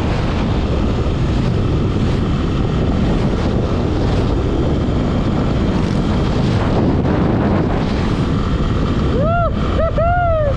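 Wind buffeting the microphone over the steady running of a Honda XR250 Tornado's single-cylinder engine while riding along the highway.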